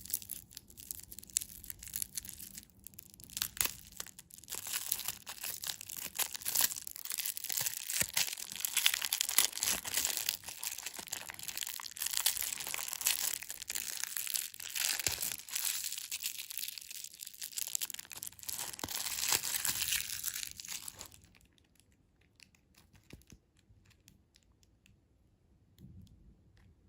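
Candy packaging being torn open and crinkled by hand: dense, crackly tearing and rustling of wrapper material. It stops about two-thirds of the way through, leaving only faint occasional handling sounds.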